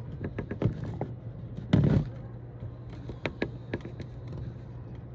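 Handling noise from a phone held in the hand: a scatter of small clicks and taps, with a louder thump about two seconds in, over a steady low hum.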